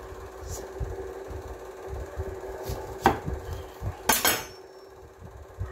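Kitchen knocks of a knife and a halved lemon being handled. A few separate sharp taps, with the loudest quick cluster about four seconds in giving a brief ring, over a steady low hum.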